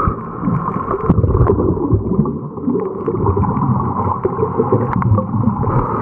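Motorboat engine running on the water, with a loud, uneven low rumble of engine, hull and splashing.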